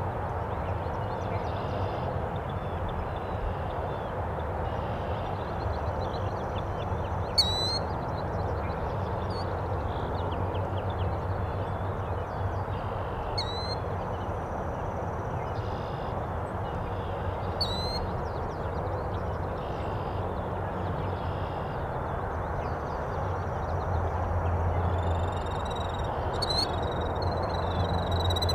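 Steady outdoor background rumble and hiss with wild birds calling now and then: single sharp, high, falling chirps a few times, and a busier run of high chirps near the end.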